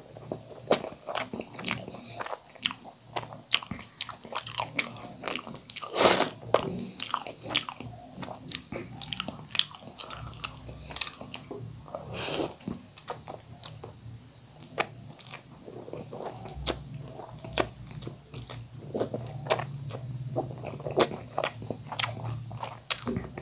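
Close-miked mouth sounds of a man eating noodles in soup: steady wet chewing with many short smacking clicks, and two longer, louder noodle slurps, about six seconds in and again about twelve seconds in.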